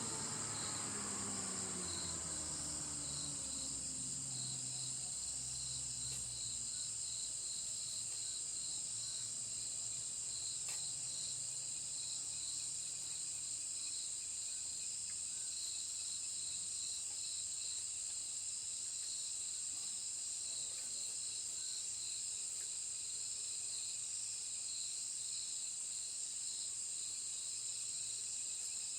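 Chorus of insects: a steady high-pitched drone with a second insect chirping in an even, repeating pulse over it. In the first few seconds a low hum falls in pitch and fades away.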